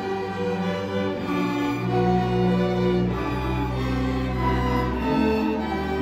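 String orchestra playing, violins bowing over long held low notes from the lower strings.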